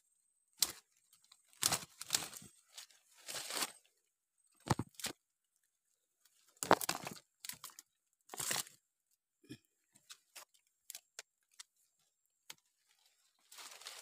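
Wooden stick prodding and scraping through wet mud, dead leaves and twigs: irregular crunching scrapes, giving way to scattered light clicks after about nine seconds.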